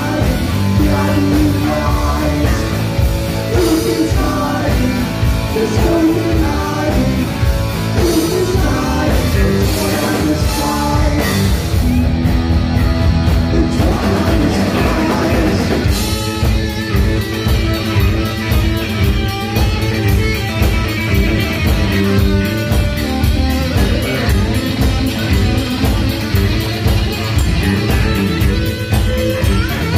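Heavy metal band playing: distorted electric guitar and drums, with a singing voice in the first half. From about sixteen seconds in, the guitar carries on without the voice.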